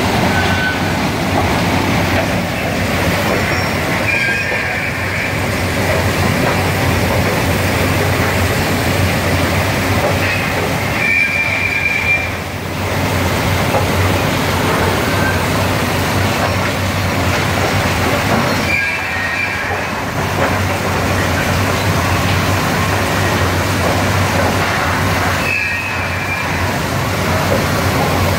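SUZ 500 track-renewal train rolling slowly along the rail while working: its machinery runs with a steady loud noise and a low hum. Brief high squeals cut in four times, about every seven seconds.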